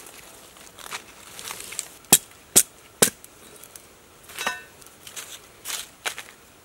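A machete chopping into a green branch: three sharp knocks about half a second apart. These are followed by a short squeaky crack and softer crackling as a strip of wood or bamboo is split and shaved by hand.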